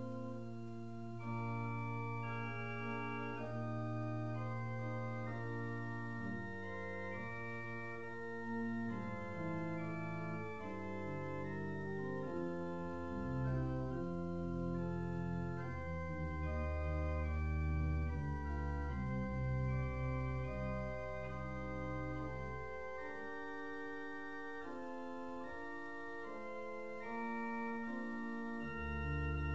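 Organ playing slow, sustained chords, a prelude before the service. The deep bass notes drop out for several seconds near the end, then return.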